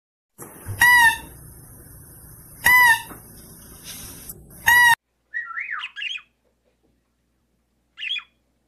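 Three short, loud, high squeaky animal calls about two seconds apart over a steady hiss. These are followed by a parrot's short chirps and quick whistled glides.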